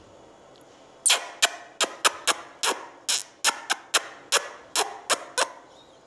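Indian ringneck parakeet giving a rapid series of about fourteen short, loud screeching calls, roughly three a second, starting about a second in and stopping shortly before the end.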